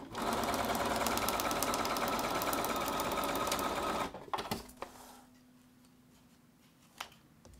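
Domestic sewing machine stitching a seam through foundation paper and fabric, running at a steady fast speed for about four seconds and then stopping. After it, a few sharp clicks as thread snips cut the threads.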